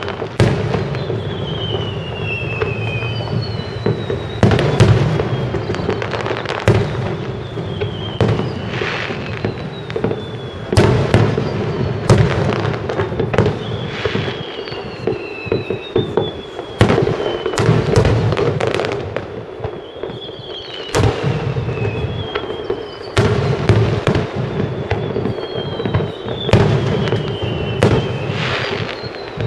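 Aerial firework shells bursting one after another in a steady run of sharp bangs.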